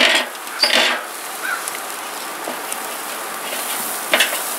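Smoked sausage sizzling as it is rubbed over a hot charcoal grill grate to grease and clean it before cooking, with a few short scrapes across the bars near the start and near the end.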